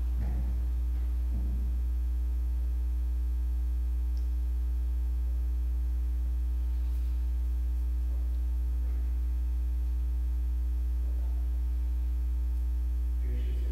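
A steady low electrical hum with a fainter steady higher tone over it, in a pause with almost nothing else sounding; a few faint short sounds about a second in.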